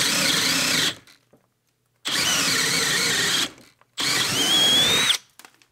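Milwaukee brushless drill driver boring a large hole in wood with a big wood-boring bit. It runs in three bursts of about a second each, stopping between them and starting again, with the whine rising during the last burst. The drill is straining on a nearly flat 2 Ah battery, which the user takes for the battery dying.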